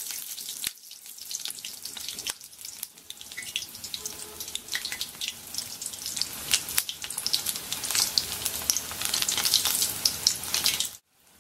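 Gram-flour-battered cauliflower pakoras deep-frying in oil in a karai, a steady sizzle with dense crackling. The oil is kept on a very low flame so the raw cauliflower cooks through before the outside browns. The sound cuts off abruptly near the end.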